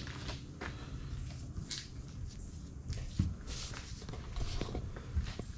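Quiet footsteps and light scattered rustles over a low, steady rumble.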